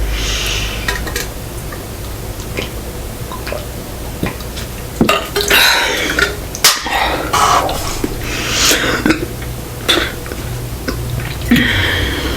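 Close-miked eating of sushi: wet chewing and squishing bursts, with sharp clicks of utensils against a plate in between.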